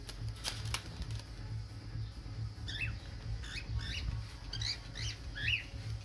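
Pet parrots in a cage chirping in a run of short, squeaky, up-and-down notes, several a second, starting about halfway in. Two sharp clicks come about half a second in.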